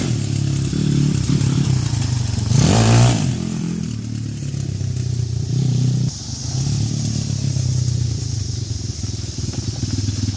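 Freshly rebuilt YX 140cc single-cylinder four-stroke pit bike engine running, with one short throttle blip that rises and falls about two and a half to three seconds in, and a brief dip in engine speed around six seconds.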